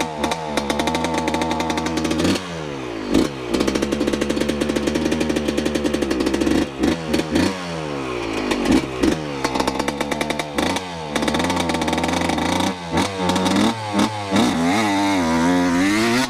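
Dirt bike engine revving hard on a holeshot launch and riding off, its pitch climbing and then dropping sharply several times.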